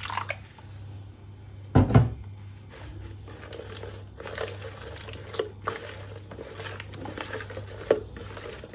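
A hand mixing a wet spice-and-oil marinade in a bowl, a run of soft, irregular squishing and scraping strokes. There is one loud thump about two seconds in, and a steady low hum throughout.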